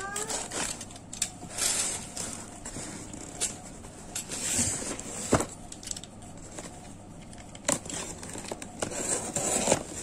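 Scattered sharp clicks and knocks, about five of them at irregular moments, over a low rustling noise, with a brief rising tone right at the start.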